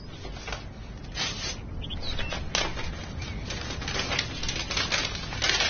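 Paper rustling and crinkling in short, irregular bursts as a letter is taken out and unfolded to be read.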